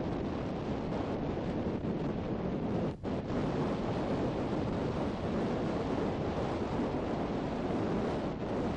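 Wind buffeting the microphone over the rush of sea water, a steady noise with a brief dip about three seconds in.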